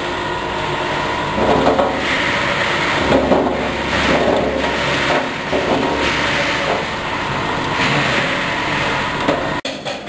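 Rotary herb dryer with an automatic stirrer running with a steady motor hum. About a second and a half in, a louder rushing rattle joins, swelling and fading about once a second, as dry material is tipped from a plastic tray into the drum; the sound cuts off suddenly near the end.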